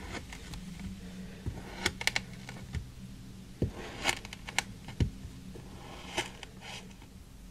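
Kitchen knife slicing through kinetic sand: a series of short, crisp crunching cuts, several of them spread about a second apart.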